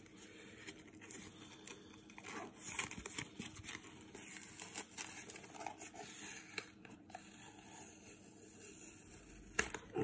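Tape being peeled off a cardboard card mailer: faint, irregular tearing and crinkling with scattered small clicks, and one sharper click just before the end.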